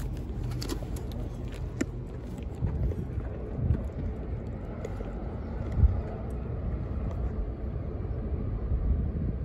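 Steady low outdoor rumble, with a few light clicks in the first two seconds and two short thumps about four and six seconds in.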